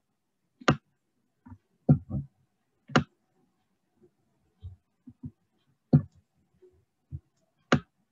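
Computer mouse clicks: about a dozen short, sharp clicks at irregular intervals, some in quick pairs.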